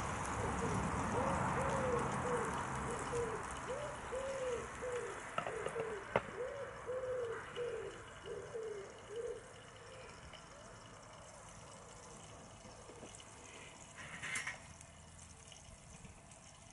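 A pigeon cooing over and over, each coo a short rise-and-fall note, stopping about nine seconds in. Beneath it a steady hiss fades away over the first half, with a single sharp click about six seconds in.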